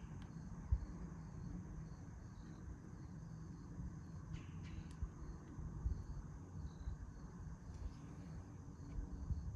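Insects chirring steadily in the background, over a low rumble with a few light clicks and knocks.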